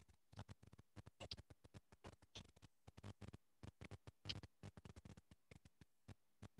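Faint typing on a computer keyboard: quick, irregular key clicks, several a second.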